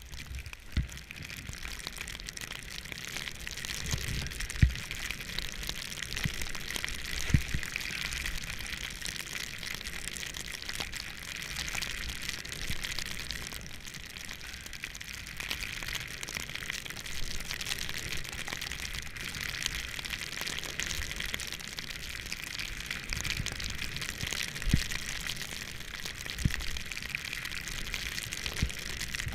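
Snowboard sliding through fresh powder snow: a steady rushing hiss, with a few dull low thumps now and then.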